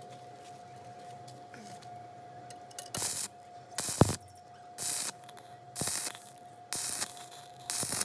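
Stick-welding arc crackling and hissing in short bursts, about half a second each and roughly one a second, as the arc is struck and broken repeatedly. The bursts start about three seconds in, over a steady faint hum.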